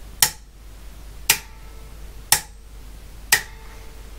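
Mains contactor in a PDP-11/34A power controller clicking in and out four times, about a second apart, as its remote input is switched, with a faint hum in between some of the clicks. The regular pull-in and release shows the resoldered opto-isolated triac driving the contactor properly again.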